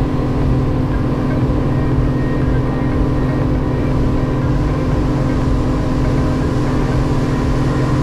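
Large outboard motor running steadily at cruising speed, under a rush of wind and churning water from the boat's wake.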